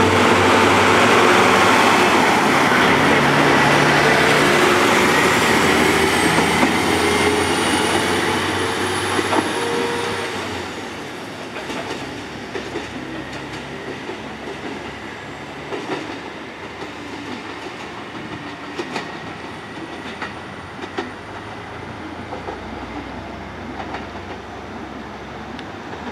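KiHa 25 series diesel railcar pulling out and passing close by, its diesel engine and running gear loud for the first ten seconds or so. It then fades as the train draws away, with the wheels clacking over rail joints every second or two.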